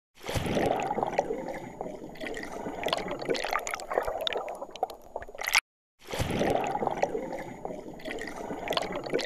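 Water gurgling and sloshing in a small glass bowl holding a hermit crab, with many scattered sharp clicks and taps. It cuts off suddenly about five and a half seconds in, and after a short gap the same sounds start over.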